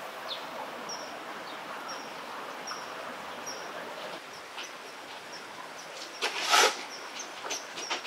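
Common kingfisher calling: short, thin, high-pitched notes repeated about every half second over a steady outdoor hiss. About six seconds in there is a sudden loud rush of noise lasting about half a second.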